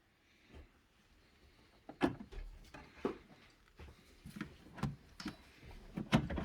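A series of light knocks and clicks, about eight of them, starting some two seconds in, like things being handled and set down.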